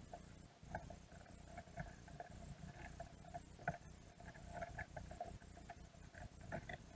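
Faint, irregular clicking and scraping picked up underwater as Dungeness crabs' claws and legs work at a plastic mesh bait cage, several clicks a second, over a low rumble.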